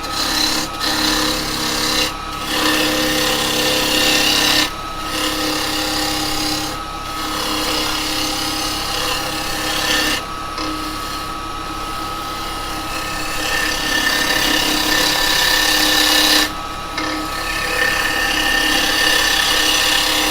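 Axminster 1628 wood lathe running while a carbide chisel cuts a spinning green cherry bowl blank. There is a steady motor hum under a loud scraping hiss of the cut, which breaks off briefly several times as the tool is lifted between passes.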